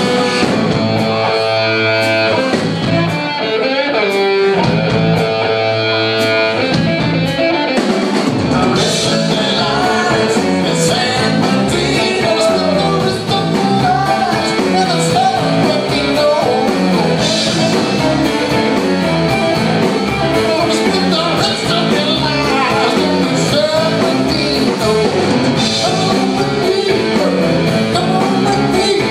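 Rock band playing an instrumental passage. It opens on held, sustained notes, and from about eight seconds in the full band plays on with drums and cymbals.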